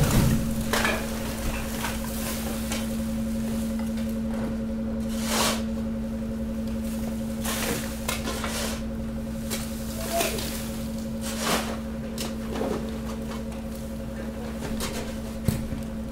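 Bags and loose household garbage dropping into a hydraulic baling press's chamber, rustling and thudding several times, loudest at the very start. Under it a steady hum from the press's running hydraulic power unit.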